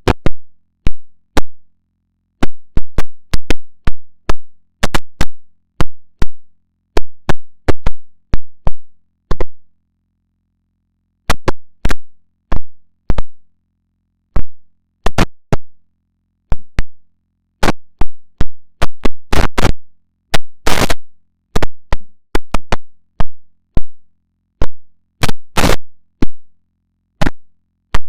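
Digitally edited, glitchy audio: dozens of short sharp clicks and pops at irregular intervals over a faint low hum, with a couple of slightly longer bursts in the second half.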